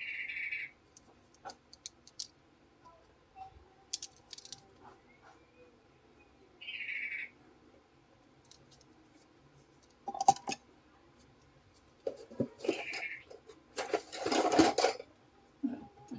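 Small metal repair tools clicking and tapping as they work on a phone, with three short high chirps spaced about six seconds apart. A louder scraping rustle comes near the end.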